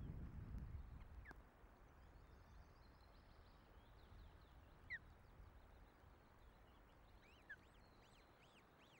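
Wind buffeting the nest camera's microphone as a low rumble that dies away after about a second and a half, leaving a faint wind hiss. A few short, high, falling bird chirps sound faintly through it, with a quick run of repeated chirps starting near the end.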